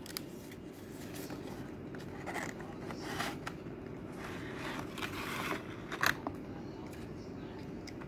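Cardboard box and clear plastic tray being handled: the inner tray scraping and rustling as it slides out of the box, with a few sharp plastic clicks about three and six seconds in.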